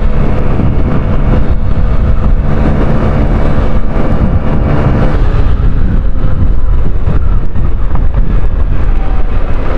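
Docker Milano 49cc four-stroke scooter engine held at full throttle on a top-speed run, a steady drone under heavy wind rushing over the microphone.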